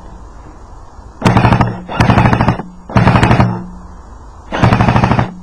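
Airsoft gun firing four short full-auto bursts, each about half a second of rapid clicking with a steady hum under it.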